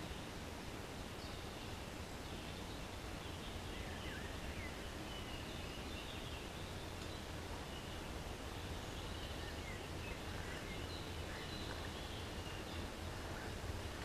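Steady outdoor background noise with faint, high songbird chirps here and there.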